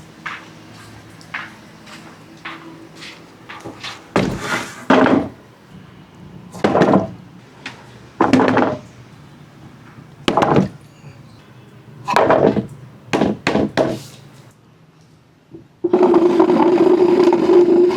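Marbles rolling and clattering along a wooden track: a string of knocks and short rolling runs, then near the end a long, steady, loud roll with a low hum.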